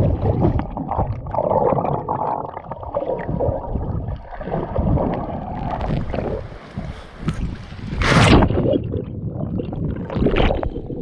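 Sea water sloshing and gurgling around an action camera dipped underwater by a swimmer, muffled and turbulent. Two louder splashes come about eight and ten seconds in.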